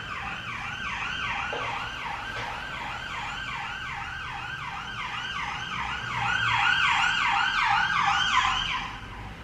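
Emergency vehicle siren sounding a fast yelp, its pitch rising and falling about three to four times a second. It grows louder about two-thirds of the way through, then fades out just before the end.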